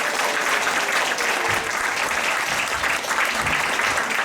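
Theatre audience applauding steadily at the close of a show, a dense continuous wash of clapping.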